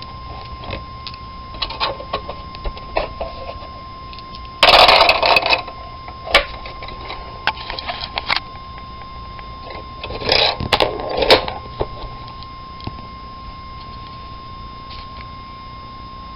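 Novelty skull candy dispenser working: scattered clicks and rattles, with two loud, harsh bursts about five and ten seconds in, over a steady high tone.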